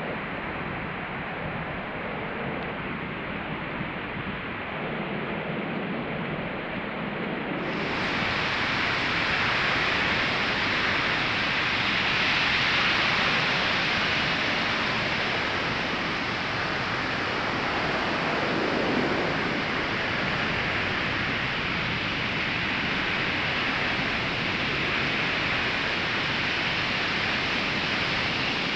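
Ocean surf washing steadily on a sandy beach. About eight seconds in, the sound turns suddenly brighter and a little louder.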